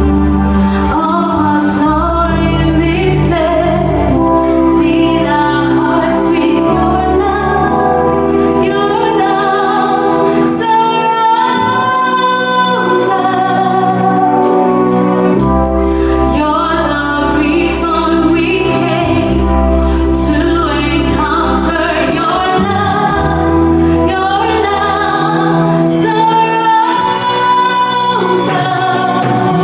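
Gospel worship music: a singer, joined by other voices, sings over a band with a steady bass line.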